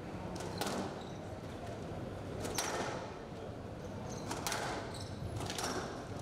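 A squash rally: sharp hits of rackets striking the ball and the ball hitting the court walls, one every second or two, with short high squeaks of players' shoes on the court floor.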